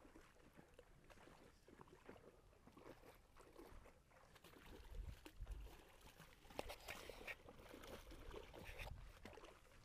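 Near silence: faint outdoor ambience with scattered soft clicks and rustles, a few slightly sharper clicks about seven seconds in.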